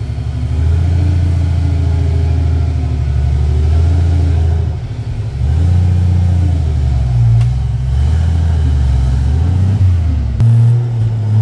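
Off-road 4x4's engine revving up and down repeatedly under load as it climbs a steep, rutted dirt slope, easing off briefly about five seconds in.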